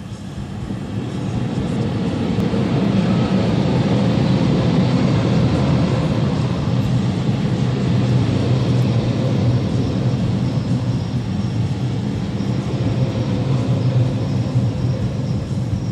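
Freight train of tank wagons behind a PKP ET22 electric locomotive rolling past: a steady, deep rumble of wheels on the rails that swells over the first few seconds and then holds, heard from inside a car.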